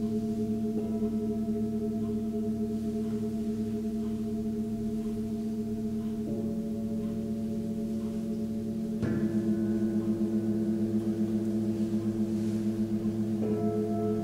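Seven-metal Tibetan singing bowls ringing together in long overlapping tones. A bowl is struck softly about six seconds in, another louder about nine seconds in, and a third near the end. After the louder strike the ringing wavers in a steady beat.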